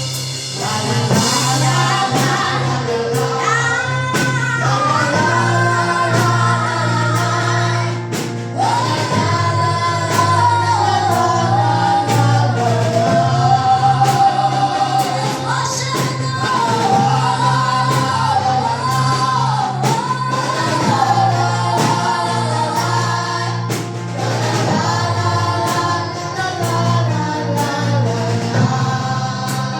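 Gospel song: voices singing a melody over a band with a steady beat and a sustained bass.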